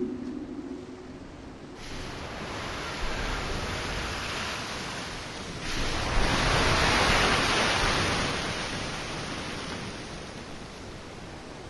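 Waves washing on a shore: the noise rises about two seconds in, swells to its loudest around the middle, then slowly ebbs.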